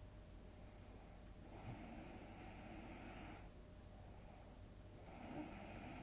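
A sleeping person snoring faintly, two long breaths about three and a half seconds apart.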